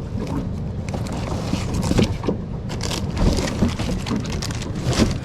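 Wind rumbling on the microphone aboard a small boat in choppy waves, with irregular knocks and splashes.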